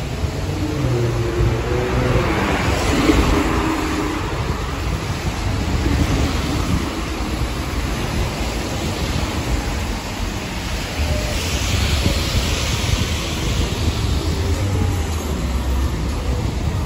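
Street traffic on a wet road: vehicles passing with tyre hiss that swells about two seconds in and again around eleven seconds in, over a steady low rumble.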